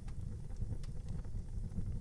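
Wood fire burning in an outdoor fireplace: a steady low rumble of flame with a few sharp crackles.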